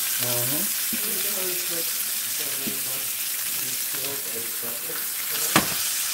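Sirloin steaks sizzling in butter in a frying pan as they are basted with a spoon, a steady hiss. One sharp knock about five and a half seconds in.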